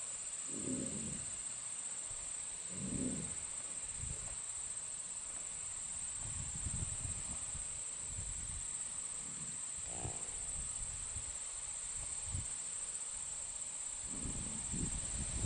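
Insects trilling steadily in the grass, a constant high-pitched buzz. A few short low sounds come through about a second in and again around three seconds, with more low sounds growing louder near the end.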